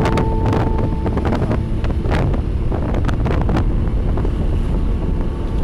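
Wind buffeting the microphone over a steady low rumble of vehicle and traffic noise on the move. A steady pitched tone stops about a second in.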